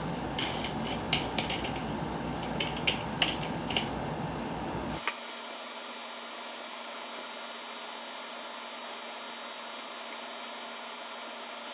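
Parts of a Dowell electric fan being handled and fitted during assembly: a run of sharp clicks and knocks over a low steady rumble. About five seconds in the rumble cuts off abruptly, leaving a faint hiss with a few light taps.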